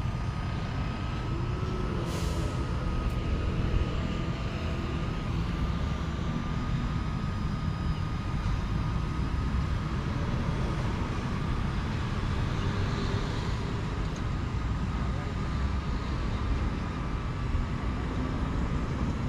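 Strong wind buffeting the microphone: a steady low rumble, with a faint steady high-pitched tone running under it.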